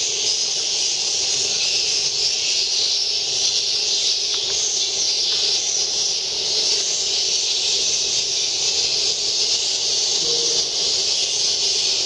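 Steady hiss of steam from a misting humidifier used to keep a swiftlet house damp.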